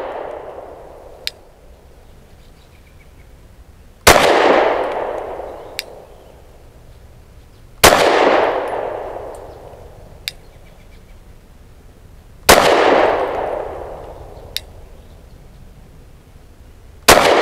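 Four slow, deliberate pistol shots from a Lone Wolf Arms Dusk 19 9mm, about four seconds apart, each ringing out and dying away over a couple of seconds. A faint short click follows about a second and a half after each shot.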